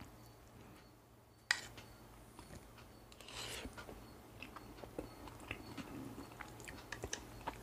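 Faint eating sounds: a metal spoon clicking against the curry bowl and plate, soft chewing, and small ticks as curry and rice are mixed on the plate. The loudest is a single sharp click about a second and a half in.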